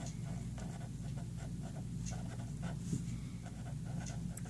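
Pen scratching across notebook paper in a run of short, irregular strokes as words are written out by hand. A low steady hum sits beneath it.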